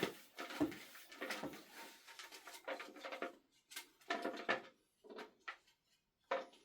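Raffle tickets being stirred and handled in their container: irregular rustling and scraping with short pauses.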